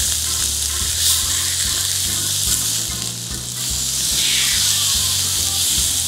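Beef steak sizzling on a hot iron griddle plate over medium heat. The hiss swells about four seconds in, as the steak is turned over with tongs and its raw side goes down onto the hot iron.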